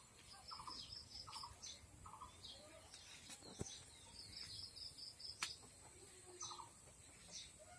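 Faint birdsong: short chirps repeated every half second or so, with quick high trills, and two sharp clicks a couple of seconds apart in the middle.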